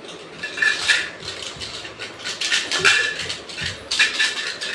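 A small cylindrical can being shaken by hand, its contents rattling and clinking inside in several quick spells with short pauses between.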